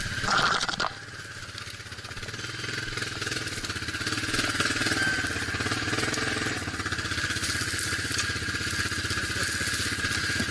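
Off-road vehicle engine running steadily at low speed over rough ground, with a brief loud clatter in the first second. The engine grows a little louder a few seconds in.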